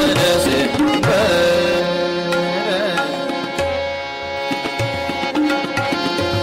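Hindustani classical music in raag Amritavarshini: tabla playing a steady rhythmic cycle, with deep bass-drum strokes, over sustained harmonium notes. A male voice sings short, ornamented gliding phrases in the first few seconds.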